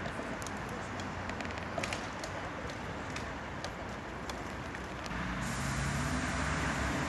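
City road traffic at a level crossing, a steady hum of passing cars with a few scattered light clicks. About five seconds in, a vehicle grows louder with a low engine hum.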